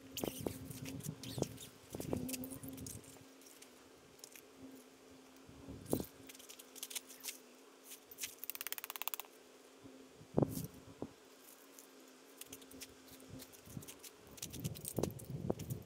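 Scattered small clicks, taps and clinks of objects being handled, with a quick rattling run of ticks a little past the middle. A faint steady low hum sits underneath and stops near the end.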